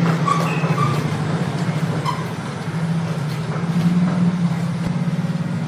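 Engine of heavy construction machinery running steadily with a low hum, and a few short high tones in the first two seconds.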